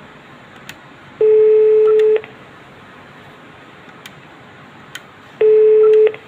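Iwatsu ADIX key telephone sounding two steady beeps through its speaker, each just under a second long and a few seconds apart, as a feature code is keyed in, with faint button clicks between them.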